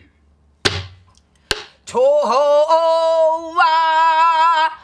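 Two strokes on a buk, the Korean pansori barrel drum: a deep stick stroke about half a second in, then a sharper crack about a second later. Then a woman's pansori singing voice comes in and holds one long note with a slight waver.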